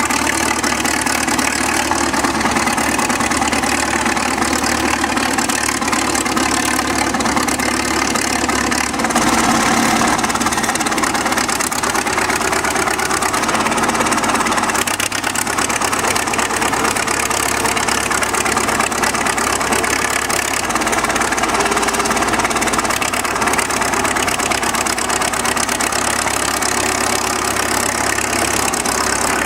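Heavy machinery engine running at idle with a knocking beat, its sound shifting about 9 and 15 seconds in.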